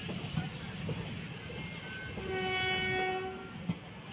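Indian Railways passenger coaches rolling past with a steady low rumble and scattered wheel clicks. About two seconds in, a train horn sounds one steady note for about a second and a half.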